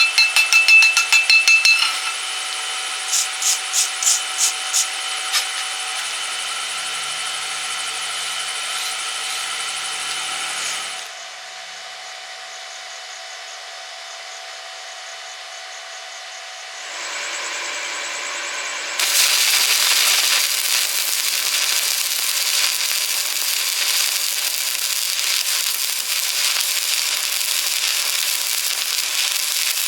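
Stick-welding arc crackling and hissing steadily from about two-thirds of the way in. Before that there is tool noise, with runs of rapid taps near the start and a quieter steady stretch in the middle.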